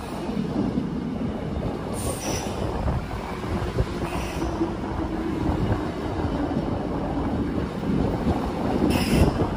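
Korail Line 1 resistance-control electric multiple unit passing close by, a steady rumble of wheels on rail with short high-pitched bursts about two, four and nine seconds in.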